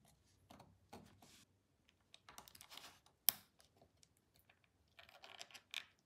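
Faint clicks and light rustling of small 3D-printed plastic parts and wires being handled and pressed into place in a handheld remote's case, with one sharper click a little past halfway.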